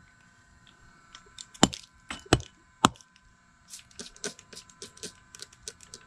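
Three sharp hatchet strikes chopping into an evergreen magnolia trunk between about one and a half and three seconds in. They are followed by a run of quick clicks from a hand trigger spray bottle squirting herbicide into the cut, the 'squirt' half of a hack-and-squirt treatment.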